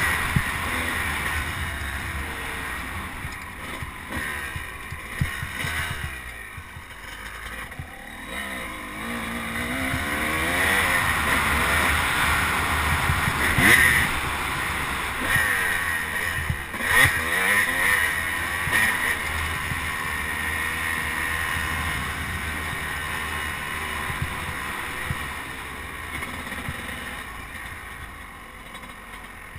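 Off-road motorcycle engine revving up and easing off as the bike rides a dirt trail, its pitch rising and falling with the throttle. It drops back for a few seconds about six seconds in, then pulls hard again, with a couple of sharp jolts in the middle.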